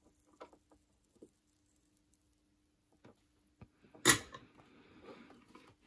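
Quiet handling of a guitar push-pull pot and a soldering iron on a wooden workbench: a few faint clicks, then one sharp knock about four seconds in, followed by soft rustling.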